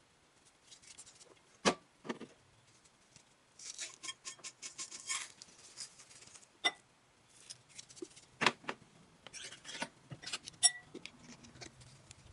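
Utensil clinking and scraping against a bowl while food is mixed: four sharp knocks with a brief ring, between bursts of fast scraping and rustling.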